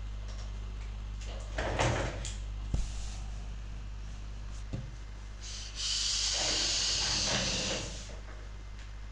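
A breathy hiss lasting about two seconds near the end, from a hit of e-cigarette vapour. Before it come a short rustle and two small knocks of handling, over a steady low hum.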